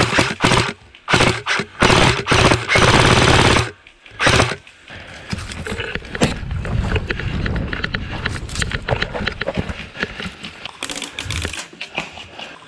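Airsoft rifle firing several quick bursts and one longer full-auto burst in the first four seconds, then quieter scattered clicks and rustling.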